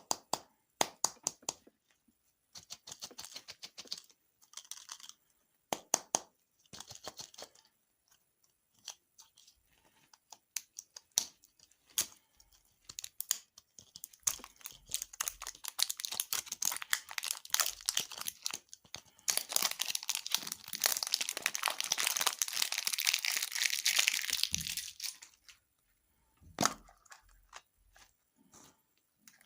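Food packaging being handled and opened: sharp taps and clicks, then a long stretch of loud crinkling and tearing in the middle, with a few more taps near the end.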